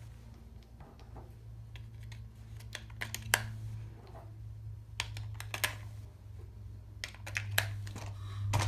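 AA batteries being pushed into a toy RC car's plastic battery holder, giving scattered light clicks and taps of battery against spring contacts and plastic. A steady low hum runs underneath and grows louder near the end.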